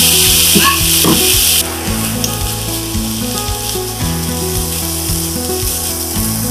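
Onion, green chilli and spice masala sizzling loudly in a nonstick frying pan, water having just been sprinkled over it so the spices don't burn, while a spatula scrapes and stirs. The sizzle drops sharply about a second and a half in.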